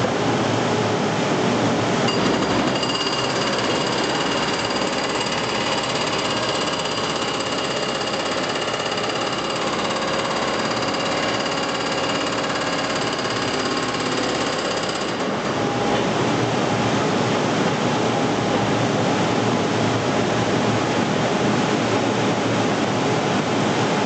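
B800 demolition machine's hydraulic hammer pounding continuously against a furnace's refractory brick lining, breaking it out. A steady high whine runs over the hammering from about two seconds in until about fifteen seconds in.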